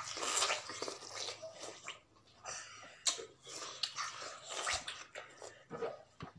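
Two people biting, slurping and chewing juicy watermelon flesh, a busy run of wet crunches and sucking noises with a short lull about two seconds in.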